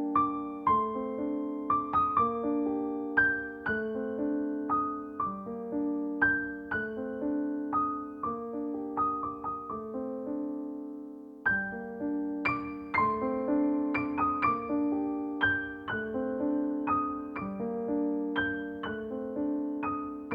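Solo piano music: a gentle melody over broken chords, each note struck and fading. A little before halfway a chord is left to ring and fade, then the playing starts again with a louder chord.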